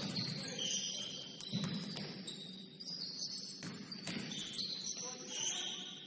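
Basketball game sounds: sneakers squeaking sharply on the court floor again and again, with a few thuds of the ball bouncing.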